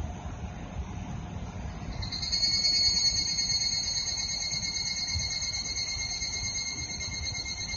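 A cicada starts calling about two seconds in: a steady, high, buzzing tone that swells quickly and then holds.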